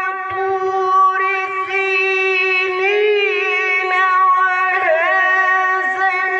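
A man reciting the Quran in a high, drawn-out melodic chant through a PA microphone: long held notes with ornamental turns of pitch, barely a pause for breath.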